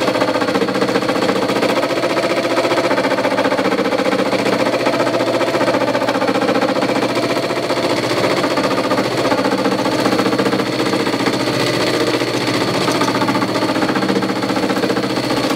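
Homemade 12-inch disc sander running steadily, its 1 hp Craftsman motor belt-driving the disc down to about 1000 rpm, with a continuous rattle that the maker puts down to the disc not being perfectly round.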